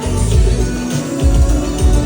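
Live pop music played loud through a concert sound system, with a heavy bass beat that drops out briefly about a second in.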